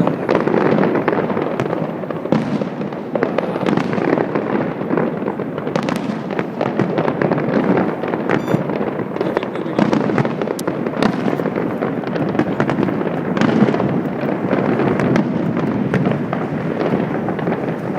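Fireworks display: a dense, continuous barrage of bangs and crackling, many sharp reports close together with no pause.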